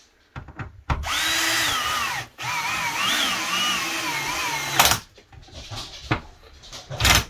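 Makita cordless drill driving screws into a wooden board, fastening a metal eye plate. It runs in two spurts, its whine dipping and wobbling in pitch as the screw bites, and is followed by a sharp knock about five seconds in.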